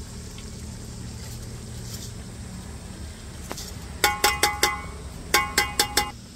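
A metal spoon is tapped against the rim of a metal cooking pot (bhagona): two quick runs of about four ringing clinks, over a steady low hum.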